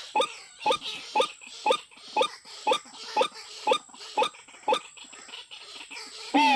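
White-breasted waterhen repeating its croaking call about twice a second, about ten times, then stopping. A louder call that slides in pitch comes near the end.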